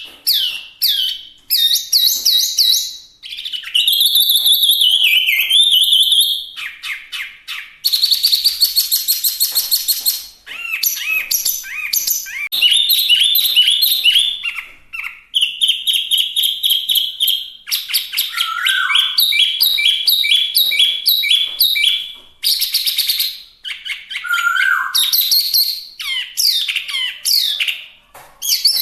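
Chinese hwamei (Garrulax canorus) singing loudly and continuously, its varied song made of rapid runs of repeated notes, trills and sliding whistles, with short pauses between phrases.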